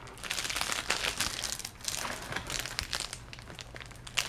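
Package wrapping crinkling with many small irregular crackles as hands work at it, trying to tear it open along its perforation.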